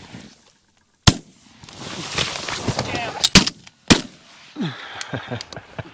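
Shotgun blasts as several duck hunters fire at an incoming bird: one shot about a second in, then a quick pair and one more shot a little later.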